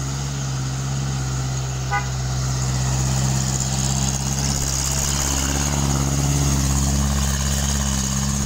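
Diesel engine of a heavily loaded light truck running as it drives past, growing louder as it comes close. A short horn toot sounds about two seconds in.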